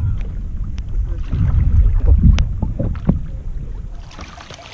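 Water lapping and knocking against an inflatable stand-up paddleboard, heard through a camera on the board's deck: a loud low rumble with scattered knocks. After about four seconds the rumble eases and a lighter splashing hiss takes over.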